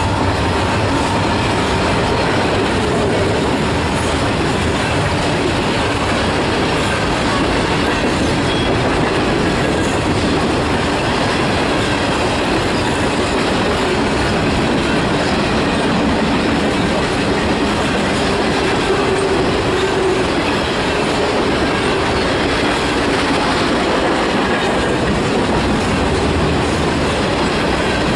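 Freight train rolling past at steady speed: its cars' steel wheels rumble and clack over the rail joints, with some wheel squeal.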